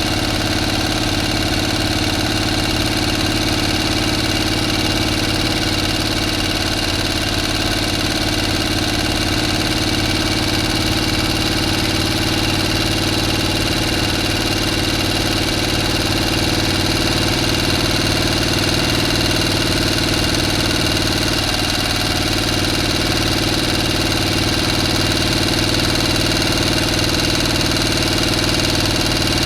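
A motor running steadily at an even speed, a constant hum of several steady tones with no change in pitch or level.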